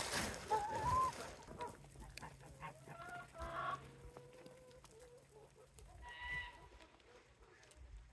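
A flock of hens clucking and calling, with scattered short calls and one louder call about six seconds in. A woven plastic feed bag rustles during the first second.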